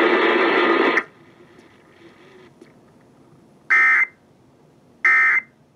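NOAA Weather Radio broadcast: a loud steady noise cuts off about a second in, then two short bursts of digital data tones sound about a second and a half apart, the coded SAME signal that brackets a weather warning message.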